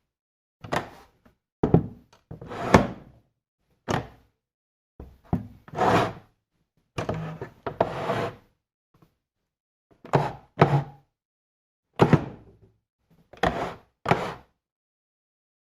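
A chair being moved and set down: about a dozen separate knocks and short scrapes, each under a second, with silence between.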